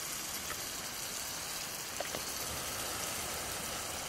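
Steady sizzling hiss of food frying in a cast-iron skillet over a wood campfire, with a few faint crackles.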